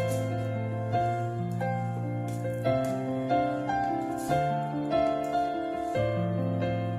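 Background music: a slow piano tune of held notes changing every half second or so, over a steady low bass note.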